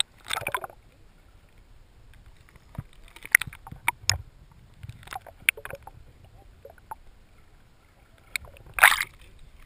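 Underwater sound picked up by a camera held in the sea: scattered knocks and clicks over a low muffled rumble, with a short splashing burst just after the start and a louder one near the end as the camera nears the surface.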